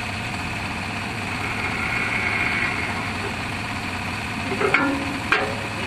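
JCB backhoe loader's diesel engine idling steadily, with a higher whine swelling briefly about two seconds in and a couple of short clicks near the end.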